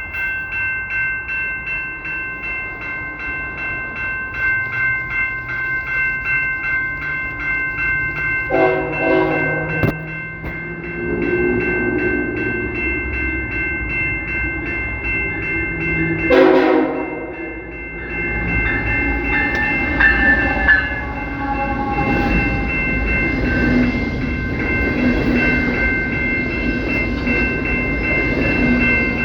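CPKC locomotive horn giving two short blasts about eight seconds apart over a bell ringing rapidly and steadily. From about halfway through, the train rolls past with a heavy, continuous wheel rumble.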